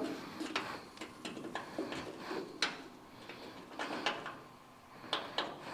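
Irregular clicks and clinks of metal hand tools being worked and handled during a thread-repair job, with a few sharper knocks scattered through.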